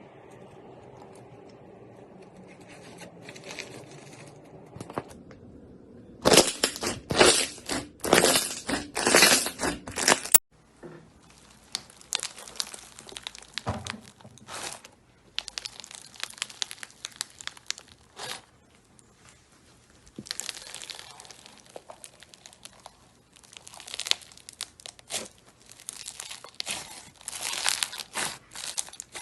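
Slime being squeezed, pressed and stretched by hand, making crackling, crunching noises in dense bursts. The sound cuts off abruptly about ten seconds in, then carries on softer, with louder bursts again near the end.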